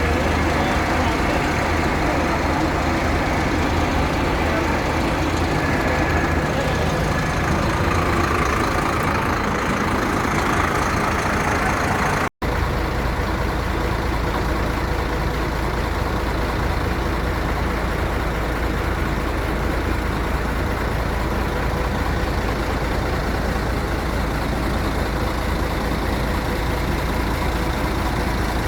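Large bus engines running at the roadside with traffic noise. There is an abrupt cut about twelve seconds in, after which a heavy engine idles steadily close by with a deep, even rumble.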